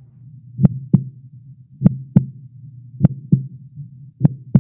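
Heartbeat sound effect: paired lub-dub thumps, four beats slowly and evenly spaced, over a low steady hum.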